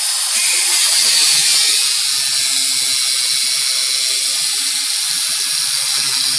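Angle grinder cutting through a car's steel coil spring that is still fitted in the suspension, a loud, steady, high-pitched grind with no break.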